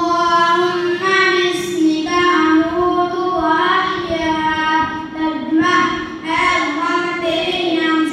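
A boy's voice chanting supplications in a melodic recitation, holding long steady notes with short breaths between phrases.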